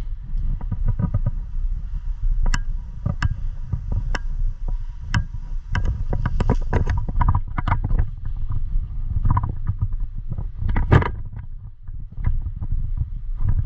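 Rumbling handling and movement noise on a worn action camera, with irregular clicks and knocks, a sharp one about eleven seconds in.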